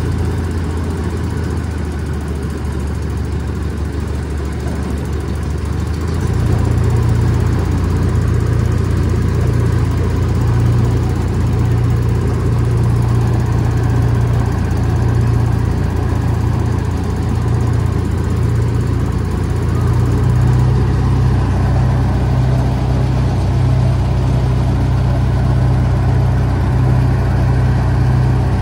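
Engine of a miniature park train's locomotive running steadily close by, a low drone that rises a little in pitch and level about six seconds in and again around twenty seconds in.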